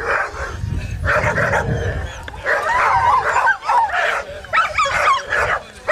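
Dogs barking and yipping in short, repeated calls that rise and fall in pitch, busiest in the second half.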